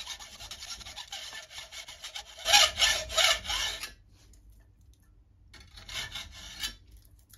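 Hacksaw cutting through the metal crank axle of a model steam engine's built-up crankshaft clamped in a vise, sawing out the axle section between the crank webs. Quick rasping back-and-forth strokes, loudest just before the middle, stop for about a second and a half and then start again for about another second.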